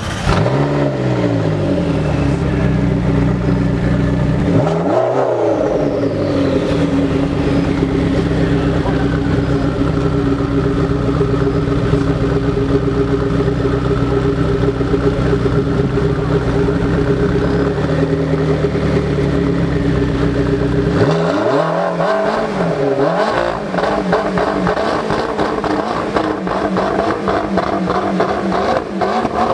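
McLaren MP4-12C's twin-turbo 3.8-litre V8 with an Akrapovic exhaust, running cold: it idles steadily, with a short blip of the throttle about five seconds in and a faint whistle falling in pitch after it. Near the end there are two more quick blips, and after them the note turns rougher and pulsing.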